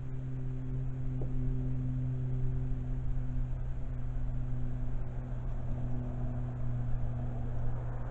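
Steady low mechanical hum, with a couple of weaker steady tones above it.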